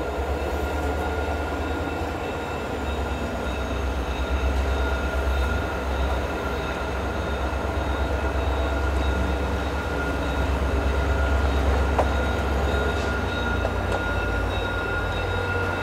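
VIA Rail F40PH-2 diesel locomotive pulling slowly into a station stop: a steady low diesel rumble under a constant high-pitched whine, with one sharp click about twelve seconds in.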